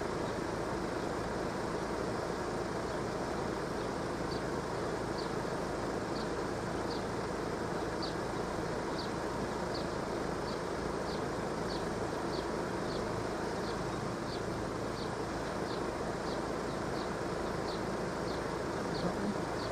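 Steady outdoor background noise, with a faint, short, high chirp repeating about every half second from about four seconds in.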